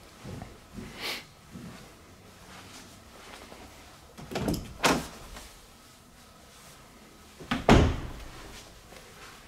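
Interior doors being handled: a few light knocks, then a pair of thuds about halfway, and a loud thud of a door shutting near the end.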